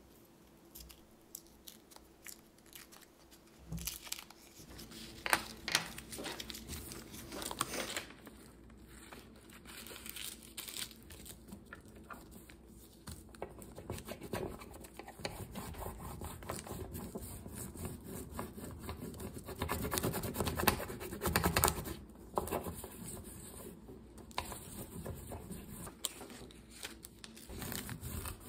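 A crayon's paper wrapper being peeled and torn off, then a wax crayon rubbed back and forth across a sheet of paper laid over a leaf, a dense run of scratchy rubbing strokes that grows louder in the second half.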